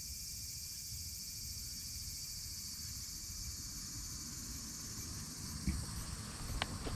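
Steady high-pitched chirring of an insect chorus, over a low rumble. A few light knocks come near the end.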